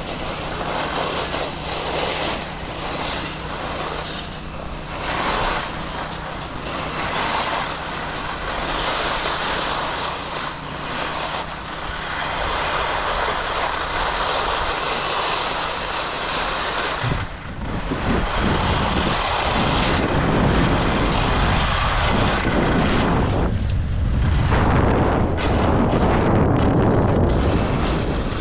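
Skis scraping and hissing over hard snow while side-slipping down a race course, with wind buffeting the microphone; the wind rumble gets heavier from about 17 seconds in.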